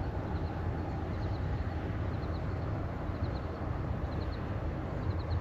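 Steady low rumble with a faint high chirp, in twos or threes, repeating about once a second.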